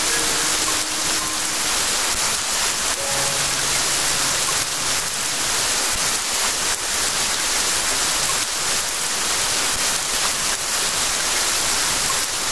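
Steady rain, an even unbroken hiss with no distinct drops standing out. A few faint held musical tones sound in the first few seconds.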